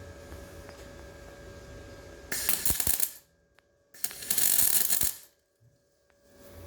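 Two short bursts of electric welding crackle, each about a second long, about two seconds in and again about four seconds in: tack welds burning a locator lug into a car's front suspension cross member.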